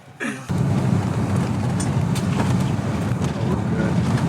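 Steady rumbling noise, heaviest in the low end, that cuts in abruptly about half a second in and holds level.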